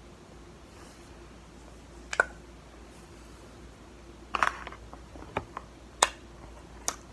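Cornstarch being handled and eaten: about six short, sharp clicks and crackles, the longest a crackling crunch about four and a half seconds in.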